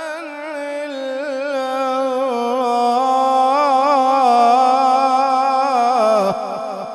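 A male qari reciting the Quran in melodic tajweed style, holding one long phrase ornamented with quick wavering turns. It swells louder through the middle and breaks off about six seconds in, with an echo trailing after.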